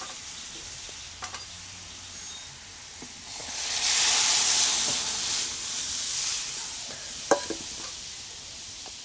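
Food sizzling in a hot metal pan as it is stirred with a spoon; the sizzle swells about a third of the way in, then dies back. A single sharp knock comes near the end.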